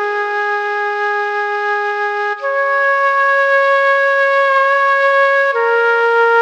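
Background music: a melody of long held notes on a wind instrument, the note changing twice.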